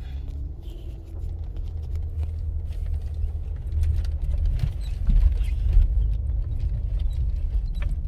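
Car driving slowly over a rough, bumpy road, heard from inside the cabin: a steady low rumble from the tyres and suspension with scattered rattles and knocks, getting louder through the stretch.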